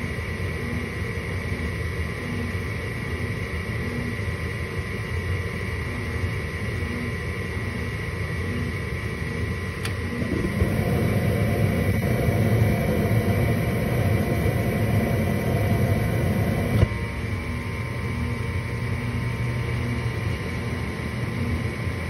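Gas furnace running, its inducer draft motor humming steadily. About ten seconds in, the burners light with a steady rush of flame. They burn for about six seconds, then cut out with a click, leaving only the inducer running: the burners fail to stay lit, which is the furnace's fault.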